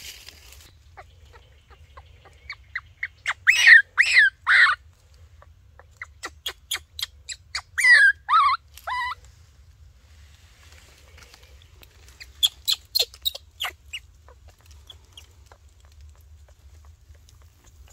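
Animal calls in three runs. Each run is a quick series of short clucks, and the first two build to two or three louder, longer calls that fall in pitch, like a cackle.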